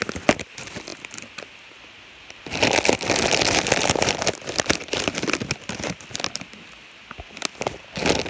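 Chip bag crinkling and rustling as a hand digs in for chips, with scattered clicks and a longer, louder stretch of rustling about two and a half seconds in.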